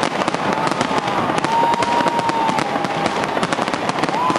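Large fireworks display: a dense, rapid crackling and banging of exploding shells, with drawn-out whistling tones over it.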